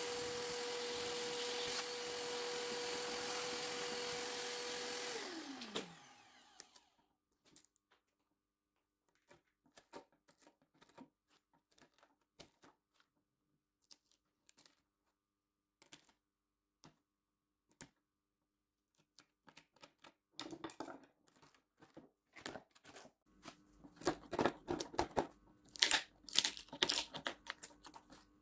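An electric power tool's motor running at one steady pitch, then switched off about five seconds in, its pitch falling as it winds down. After it, scattered light clicks and knocks, growing denser near the end over a faint steady hum.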